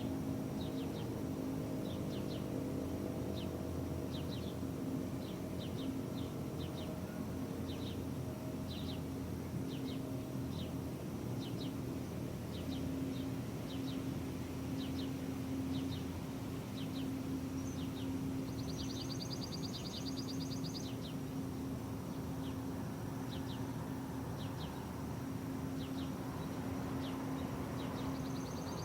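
Low-pitched Thunderbeam RSH-10 outdoor warning siren sounding its steady alert tone, a single low note that swells and fades a little. Birds chirp over it in short repeated notes, with two brief trills.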